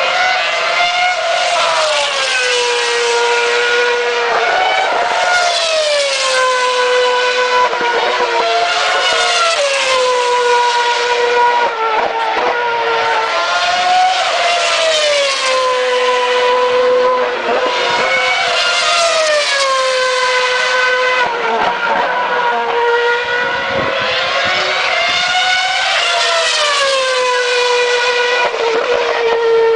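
2008 Formula One cars with 2.4-litre V8 engines running at high revs through Bridge corner, one after another. Each engine's high-pitched note falls in pitch as the car goes past, and the passes overlap so the sound never stops.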